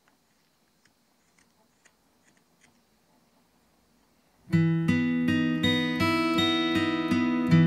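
Faint, scattered clicks of a carving knife paring old, hard wood, then about four and a half seconds in strummed acoustic guitar music starts suddenly and takes over, much louder than the cutting.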